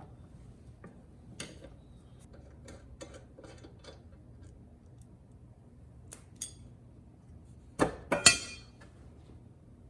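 Hand tools and metal parts clinking on a workbench: scattered light clicks, then three loud metallic clanks with a short ring about eight seconds in.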